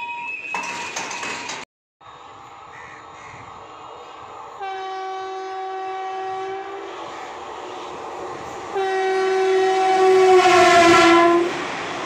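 An Indian Railways electric locomotive's horn sounds two long blasts, the first about four and a half seconds in and the second, longer and louder, about nine seconds in. The second blast dips slightly in pitch at its end. The rumble of the approaching train grows under it.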